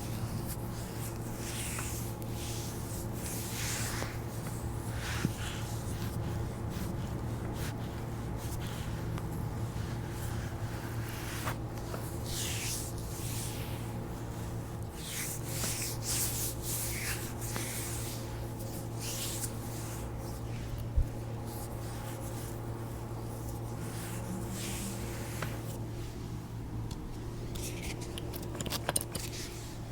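Hands rubbing and pressing along a bare foot, skin sliding on skin in repeated short swishes. A steady low hum runs underneath, and there is one sharp click about two-thirds of the way through.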